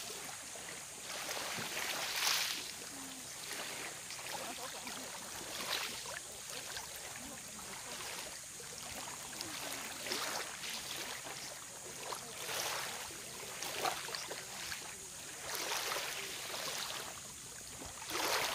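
Small waves lapping onto a sandy, pebbly shore, each one washing in with a soft hiss every couple of seconds.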